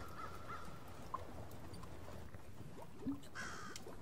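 A bird caws once, starting about three seconds in, over steady low background noise with faint crackles.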